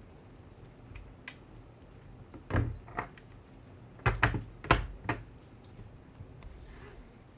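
A run of about six short knocks and thuds in the middle, the loudest two close together, over a faint steady background.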